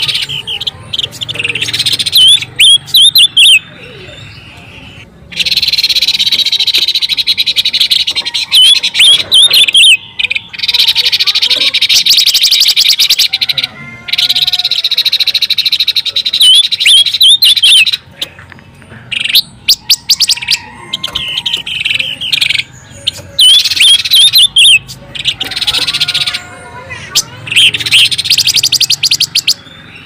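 Silver-eared mesia calls: loud, very fast rattling trills mixed with quick up-and-down whistled notes, in bouts of a few seconds with short breaks between them.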